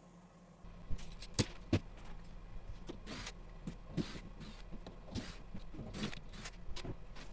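Cordless drill/driver backing screws out of a plywood shipping crate: short bursts of the drill spinning, mixed with sharp clicks and knocks of the screws, brackets and wood being handled.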